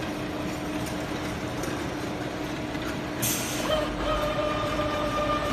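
Vertical 5-axis CNC machining centre running with a steady mechanical hum; a little past three seconds a short burst of air hiss, then a steady whine comes in and holds.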